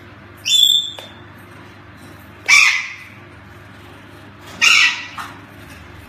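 Hyacinth macaw calling three times: a short, clear high note about half a second in, then two harsh squawks about two seconds apart.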